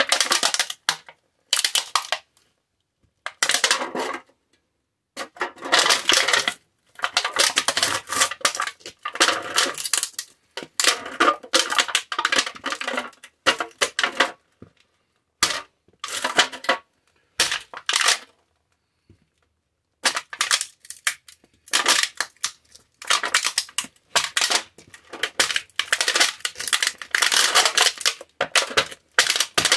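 Thin aluminum can being crushed and ground flat under a leather-soled cowboy boot heel on a concrete floor. The sound is crunching and scraping metal, coming in repeated bursts with short silent gaps.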